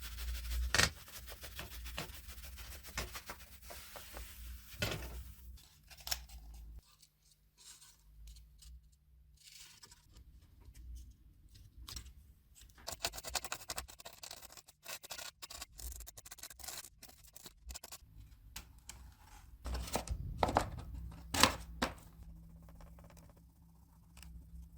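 Small parts being worked by hand: scraping and cutting sounds broken by several sharp clicks and knocks, with a faint steady hum near the start and again near the end.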